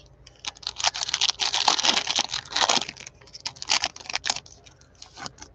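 Plastic cello-pack wrapper of a Panini Prizm basketball card pack crinkling and tearing as it is opened by hand, a dense run of irregular crackles that stops just before the end.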